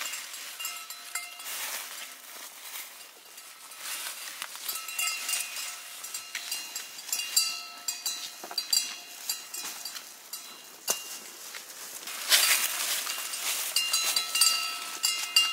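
Irregular metallic clinks with short ringing tones, over rustling and scraping noise.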